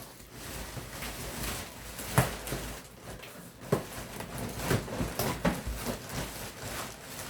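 Packaging being handled while a pressure washer is unpacked from its box: rustling and scraping, with several sharp knocks, the loudest about two seconds in.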